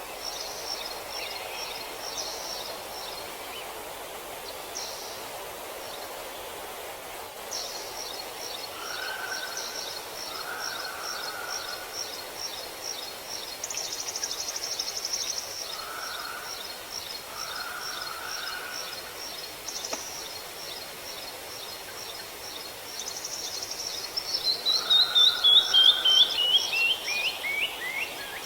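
Forest ambience with birds singing: long runs of rapid high chirps, short lower calls now and then, and near the end the loudest call, a quick series of notes falling in pitch, all over a steady soft hiss.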